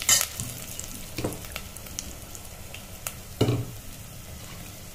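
A tempering of cumin, peanuts, cashews, green chillies and fresh curry leaves sizzling steadily in hot oil in an aluminium pressure cooker. A few short knocks sound over it, the loudest about three and a half seconds in.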